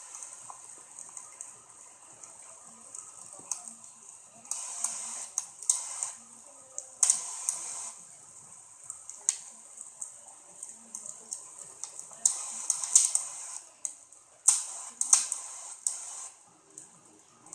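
Wood fire crackling and popping in irregular clusters over a steady hiss, with denser bursts of pops about a third of the way in and again in the second half.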